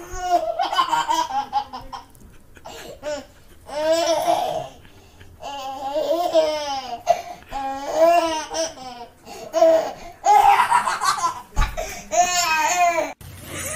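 A toddler laughing in repeated high-pitched bouts of belly laughter, with a short low thump near the end.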